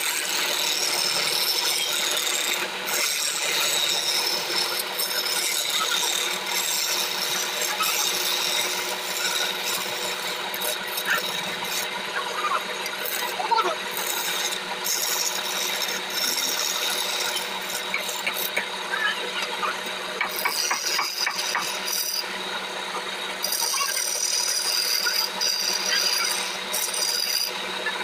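A hand-held turning chisel cuts a spinning teak blank on a wood lathe, making a steady scraping hiss as shavings come off, over the steady hum of the lathe. The cutting eases off briefly several times in the second half.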